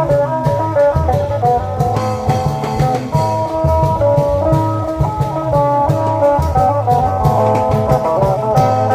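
Isan klong yao procession music: a fast, busy plucked-string melody over a steady pattern of long drums.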